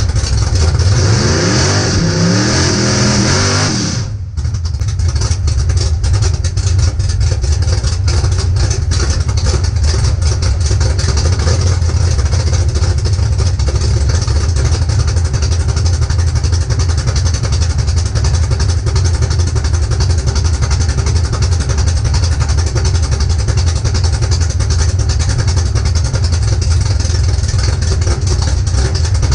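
Big-block Chevrolet V8 in a drag-race Camaro, heard from inside the cabin. It revs high with a hiss for about the first four seconds, then drops suddenly to a steady idle.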